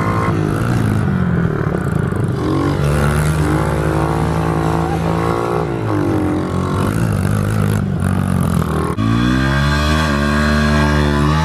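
A small dirt bike's engine revving as it is ridden, its pitch climbing and dropping again and again with the throttle.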